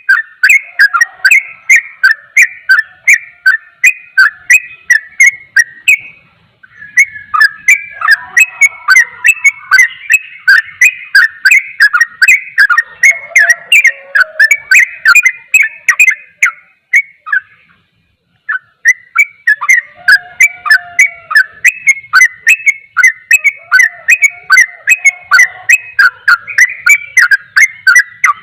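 Yellow-vented bulbul (trucukan) singing in a fast, unbroken run of sharp chirping notes, about three a second (the rapid "ropel" song), with two short breaks, about six and eighteen seconds in.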